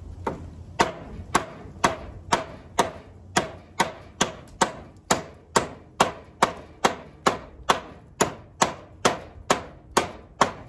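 Work Tuff Nomad field knife, a thick SK85 steel blade, chopping into the wooden edge of a door: a steady run of sharp chops, a little over two a second.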